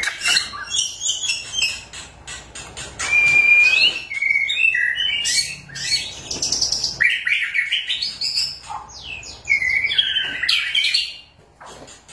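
White-rumped shama (murai batu) in full song: a fast, varied run of clear whistles, trills and chattering notes, with a short pause near the end.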